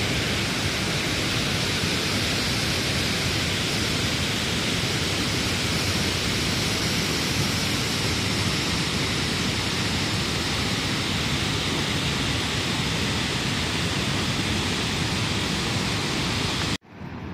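Waterfall spilling down a rock face: a steady rush of falling water that cuts off suddenly near the end.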